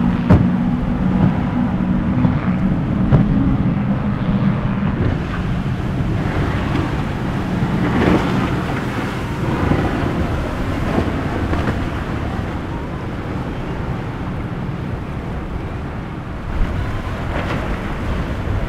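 A boat's engine drones steadily for about the first five seconds, then fades. Wind buffets the microphone throughout, with the wash of waves in the inlet swelling about eight seconds in.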